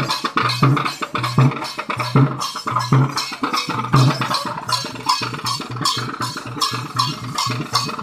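Kavadi dance drums, hand-carried drums beaten in a fast, even rhythm: a quick run of sharp, bright strokes over a deeper beat that repeats about twice a second.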